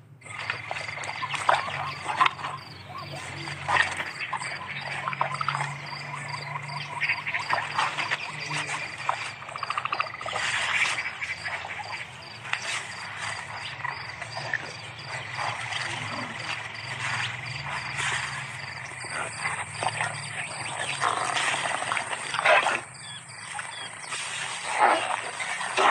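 Frogs croaking and insects chirping in a steady, fast-ticking chorus, with scattered short louder noises over it.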